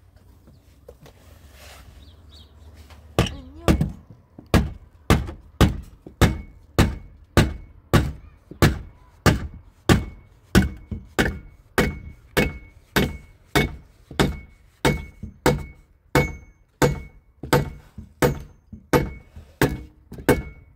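A hatchet used as a hammer, striking a plywood board on a wooden post in a steady run of sharp wooden knocks, a little under two a second, beginning about three seconds in.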